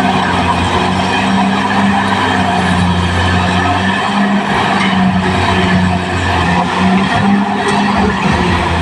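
Caterpillar D6R XL bulldozer working, its diesel engine running steadily under load beneath a harsh squealing, scraping noise from the steel tracks.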